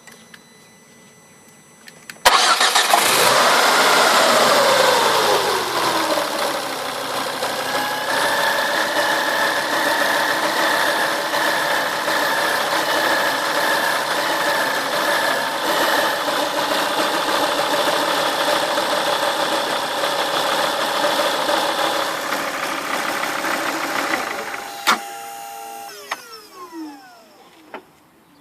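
Ford Focus ST mk2's 2.5-litre turbocharged five-cylinder engine started about two seconds in, its revs flaring and falling back to a steady idle. Over the idle runs a high whine that warbles for several seconds: the strange noise blamed on the power steering pump. Near the end the engine is switched off with a click and the tones fall away.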